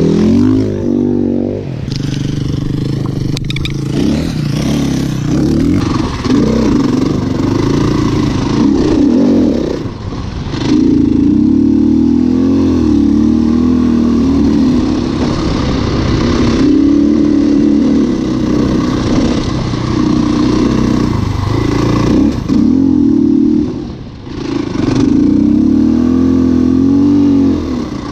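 KTM dirt bike engine revving up and down as the bike is ridden over sand dunes. The throttle eases off briefly about ten seconds in and again near twenty-four seconds.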